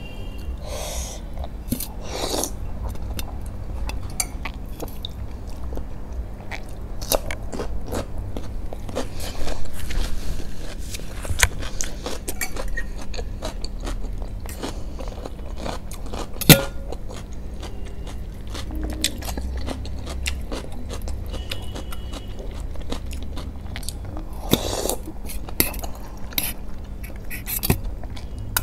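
Close-up eating sounds of masala Maggi noodles: chewing, with short slurps as noodles are drawn in, and a metal fork clicking and scraping against a glass bowl as she twirls them, the sharpest click about halfway through.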